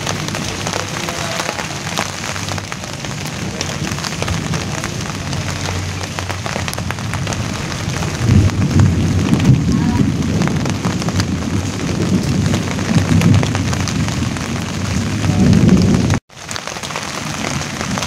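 Steady rain falling on large broad leaves: a hiss full of fine drop ticks. From about halfway a low rumble of thunder swells and rolls under the rain, and the sound cuts out for a split second near the end.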